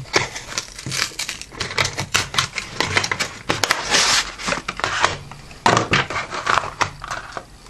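Cardboard card box being opened by hand and its clear plastic tray pulled out: a quick, irregular run of crinkles, clicks and scrapes from the cardboard and plastic packaging, thinning out near the end.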